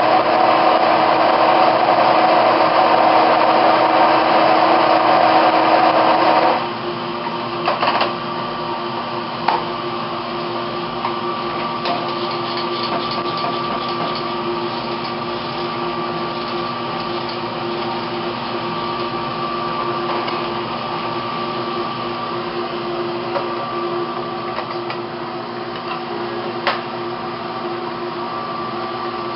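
Hand-held stick blender running in a beaker of rinse water, stopping about six and a half seconds in. A steady machine hum and a few short clicks follow.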